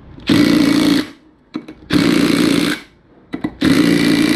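Cordless impact gun hammering in three short bursts, about a second and a half apart, running down the ring-gear bolts on a limited-slip differential. Small clicks come between the bursts.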